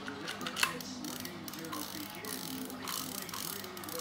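Spinning fishing reel being cranked by hand, its gears and mechanism clicking rapidly, with one sharper click about half a second in.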